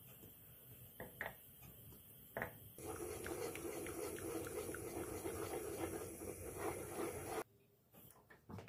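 A few light knocks, then water running from a tap for about four and a half seconds before it stops abruptly.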